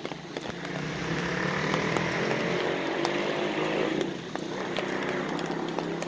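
A small engine running steadily. It grows louder over the first second and dips briefly about four seconds in.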